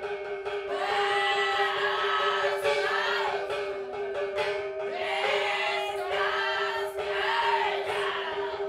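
Live operetta music: singing with sliding, curving phrases over a steady held note that never breaks.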